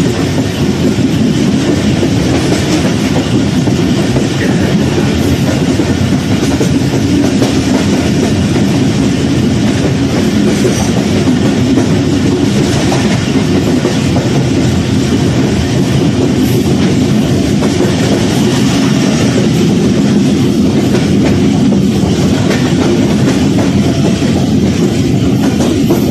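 Passenger train carriage running steadily along the track, heard from on board: a continuous loud rumble of wheels on the rails with a clickety-clack.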